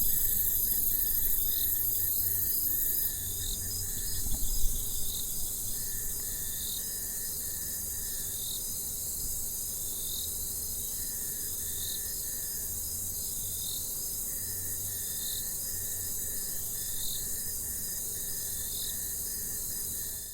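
Jungle night ambience of insects: a dense, steady high-pitched chorus with pulsed trills that start and stop, and a short chirping call repeating about every second and a half. A loud shrill buzz drops out about three seconds in, a few soft knocks come a second or so later, and the sound fades out at the end.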